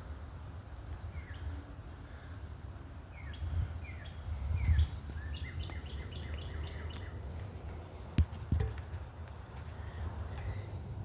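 Outdoor ambience: birds chirping, with a few quick downward-slurred high chirps followed by a rapid run of short notes in the middle, over a steady low rumble. A single sharp click comes about eight seconds in.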